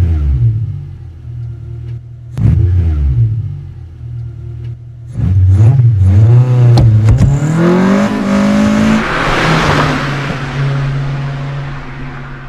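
A motor vehicle's engine revving up and down several times, climbing in pitch to its loudest, hissiest stretch about two-thirds through, then settling to a steady hum that fades out.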